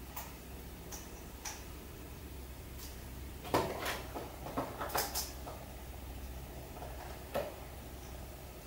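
Quiet room tone with a low steady hum and a few faint clicks and knocks, most of them bunched about three and a half to five seconds in.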